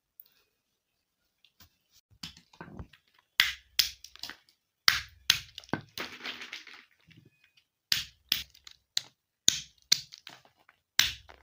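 Walnuts cracked with a metal hammer on a wooden block: an irregular run of about fifteen sharp knocks and splitting shells, starting about a second and a half in. A brief scraping rustle of shells comes about six seconds in.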